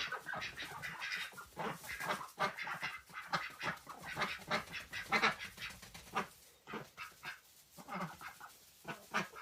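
Ducks quacking in short calls repeated throughout.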